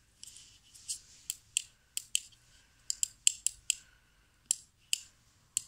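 Sharp, irregular clicks and small taps of the plastic parts of a Ford Expedition power door lock switch being handled and fitted together by hand, about fifteen in a few seconds.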